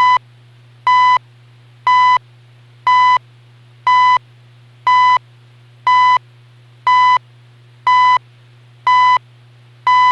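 CHU shortwave time signal as received on a portable shortwave radio: 1 kHz second pulses, each about a third of a second long, beeping once a second in a steady rhythm over a constant low hum.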